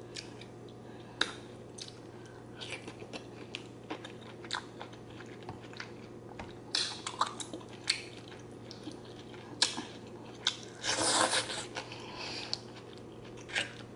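Close-up eating of zucchini noodles and shrimp in Alfredo sauce: soft wet chewing with scattered short clicks, and a longer burst of mouth noise about eleven seconds in.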